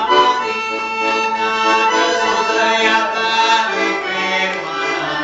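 Organetto, a small diatonic button accordion, playing a tune: sustained chords over bass notes that shift about two thirds of the way through.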